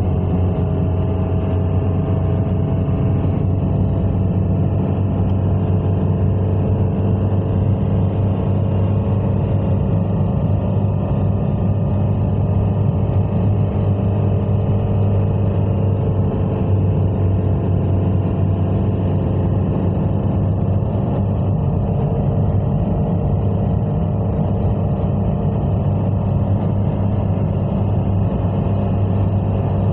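A car driving at a steady speed: a continuous low engine and road drone, with the engine note drifting only slightly.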